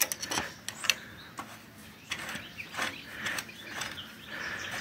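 Plastic-capped oil dipstick being fitted back into the oil filler of a Kentavr 1010DE walk-behind tractor's diesel engine: several sharp clicks in the first second, then soft scraping and rattling as it is seated.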